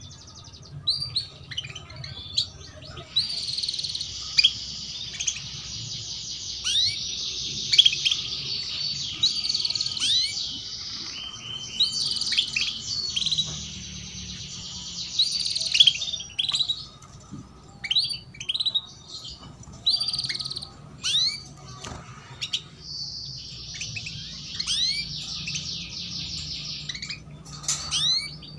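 Canaries calling: repeated short sweeping 'cuit' chirps, with long rapid trills in two long stretches, the first starting a few seconds in and the second near the end. These are the female canary's calls used as a lure to get young canaries singing.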